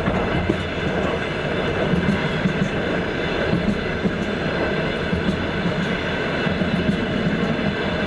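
Passenger train wheels clattering over the rails: a steady rumble with scattered clicks.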